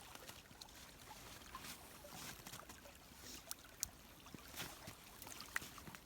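Faint crunching and scraping of snow, with a few short sharp crunches standing out in the second half.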